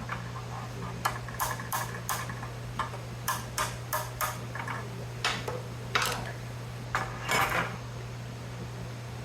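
Metal parts of an electrical panel clinking and clattering on a workbench as the plates are stripped down, about a dozen irregular sharp clanks, the last of them some two thirds of the way through.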